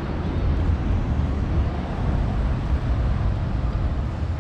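Steady low outdoor rumble with an even hiss above it and no distinct events.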